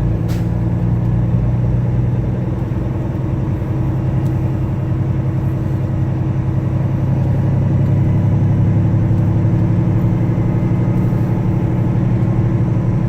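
Tractor-trailer's diesel engine running steadily at an even low pitch, with no revving.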